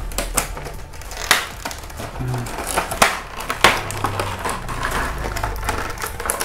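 Clear plastic blister packaging of a hand saw set being pried off its plastic tray, crinkling and giving irregular sharp clicks and snaps, over steady background music.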